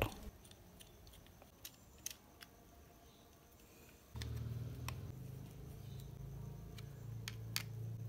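Faint clicks of small metal parts being handled while a DC motor is aligned in an electric fan's motor housing. About halfway, a steady low hum starts abruptly and is the loudest sound from then on.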